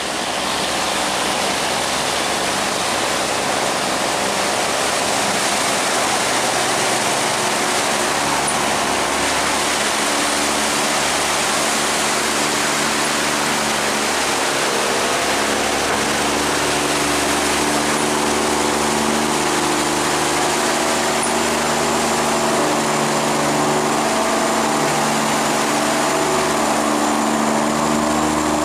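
Strong current rushing and churning white through a sluice gate around a loaded barge's hull, with the barge's engine running steadily under load as it pushes upstream. The engine's hum grows louder and clearer from about halfway through as the boat comes close.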